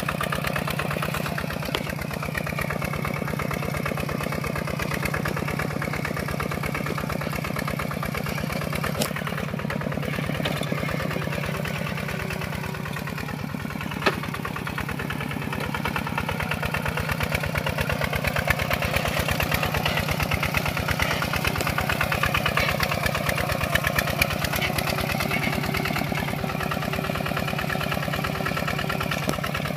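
Kubota RT140 Plus walking tractor's single-cylinder diesel engine running steadily under load as it pulls a disc plough through wet soil, its firing pulses rapid and even. It runs slightly louder in the second half, with a sharp click about halfway through.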